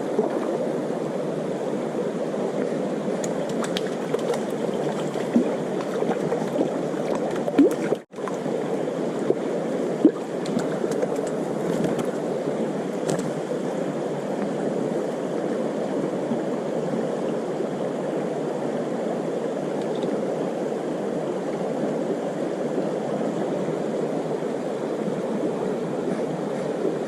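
Steady rush of a small river's running water, with a few faint knocks and a brief break in the sound about eight seconds in.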